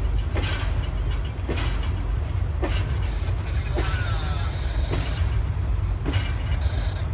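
Intermodal freight train rolling past, its wheels clicking over rail joints about once a second over a steady low rumble. A faint high squeal comes in around the middle.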